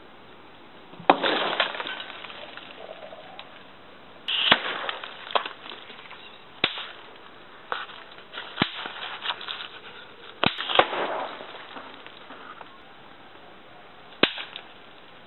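Battle sound effects: a string of about ten sharp gunshot-like cracks at uneven intervals, several trailing into a longer rumble like a shell blast, the biggest about a second in, around four seconds in and around ten and a half seconds in.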